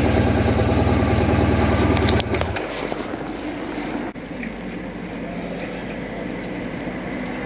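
Honda Crosstourer's V4 engine running at low road speed, then its sound drops off sharply about two seconds in, leaving quieter background noise.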